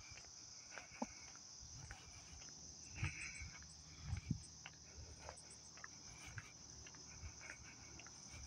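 Steady high-pitched insect chorus from the roadside grass and trees, with soft footsteps on pavement, a little louder about three and four seconds in.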